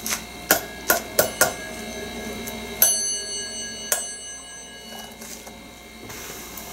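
Westinghouse elevator hall-lantern bell rung twice, about a second apart. Each strike gives a short metallic ring with several tones, and the first ring lasts about a second. A handful of quick clicks and taps from handling the bell and its mechanism comes before them.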